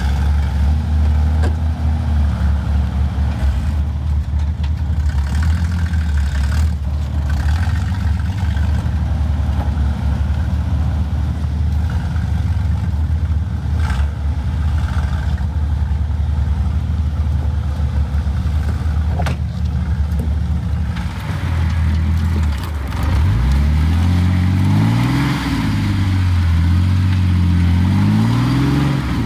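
Jeep engine running at low revs while it crawls over a rock pile, with a few sharp knocks. From about three-quarters of the way in, the engine revs up and down several times as it climbs the rocks.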